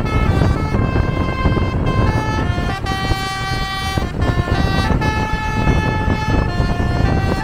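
A coach's basuri horn, a multi-tone air horn, plays a tune of held notes that step from pitch to pitch, over a steady low road rumble.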